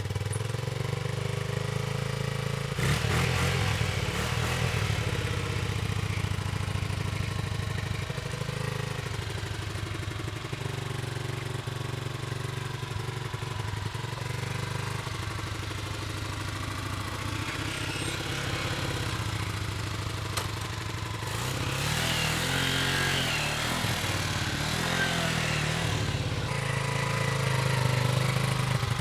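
Small motorcycle engine running steadily, its note wavering and growing busier for a few seconds near the end.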